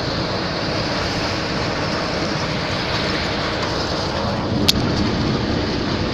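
Steady engine and road noise heard inside a moving vehicle's cab at highway speed, with a single sharp click about four and a half seconds in.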